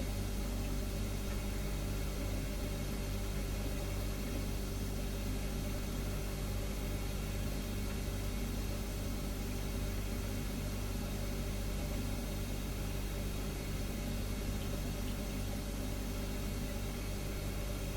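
Refrigerator humming steadily: a low hum of several steady tones with an even hiss over it, unchanging throughout.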